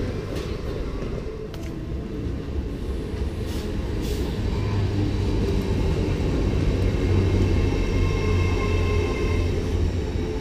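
LNER Azuma high-speed train running in along a station platform: a steady low rumble of wheels on rails that builds a little midway, with a few sharp clicks in the first four seconds.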